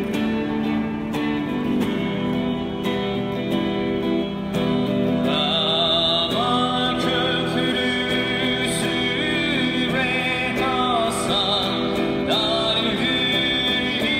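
A guitar strumming chords, and about five seconds in a voice starts singing a melody over it, amplified through a microphone.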